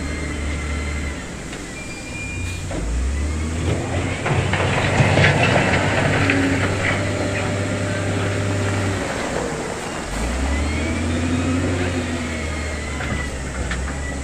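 Heavy diesel construction machinery running steadily, with a louder, rougher stretch about four to six seconds in and the engine pitch rising and falling again around ten seconds in.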